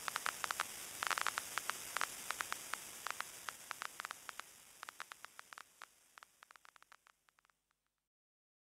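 Faint crackling static: a soft hiss dotted with irregular pops and clicks that grow sparser and fainter, ending in silence about eight seconds in.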